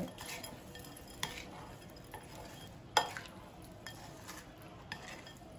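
Roasted, crushed Maggi noodles and chopped vegetables being stirred with a silicone spatula in a glass bowl: a faint, continuous crunchy scraping, with a few sharp clicks, the loudest about three seconds in.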